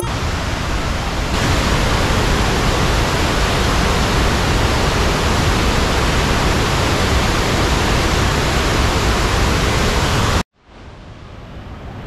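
Waterfall rushing as a loud, steady wash of water noise. It cuts off suddenly about ten seconds in, and a much fainter hiss then slowly rises.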